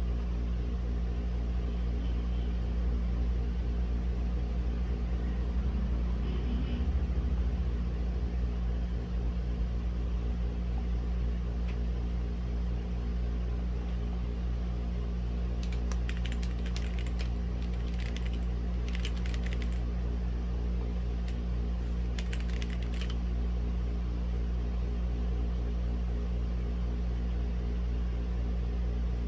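Mechanical keyboard with red linear switches (Womier/Gamakay K87) being typed on in a few short bursts of keystrokes past the middle. Underneath runs a steady low hum.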